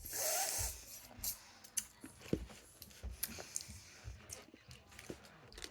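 Faint clicks, taps and rustles from handling and biting wax candy bottles, with a short breathy rush in the first second.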